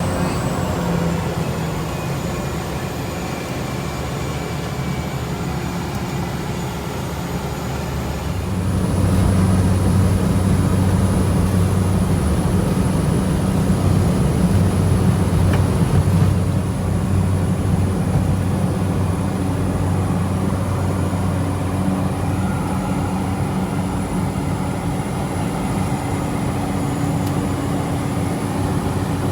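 Light propeller aircraft engine running with a steady drone, getting louder about eight seconds in.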